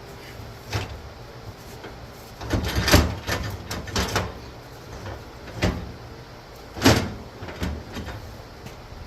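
A series of irregular knocks and clunks, about six in all, the loudest around three seconds in and again near seven seconds.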